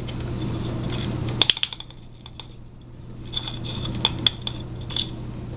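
Sharp metallic clicks and clinks from a Chrysler LeBaron convertible rear window motor's armature knocking against its steel housing as the greased armature shaft is worked into its bushing. A quick cluster comes about one and a half seconds in, and more clicks come around four and five seconds.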